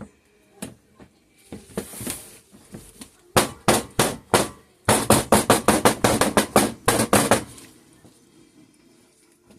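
Soap-making equipment rapped repeatedly against a hard work surface: a few sharp knocks, then a faster run of about a dozen, after a short hiss about a second and a half in.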